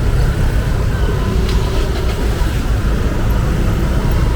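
Street traffic: a steady low rumble of motor vehicles.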